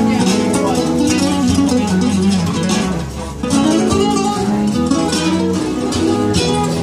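Amplified guitar playing a melodic instrumental passage, the notes gliding up and down in pitch.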